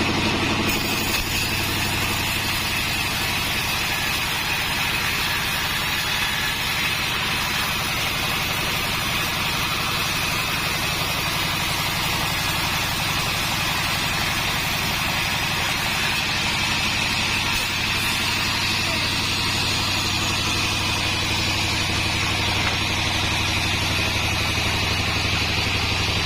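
Sawmill machinery running steadily: a continuous low engine hum with a steady high whine over it, unchanging throughout.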